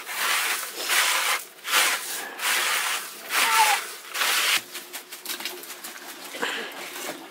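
Hand rubbing grains against a woven bamboo winnowing tray: a run of scratchy rubbing strokes, each about half a second long, that thins out after about four seconds.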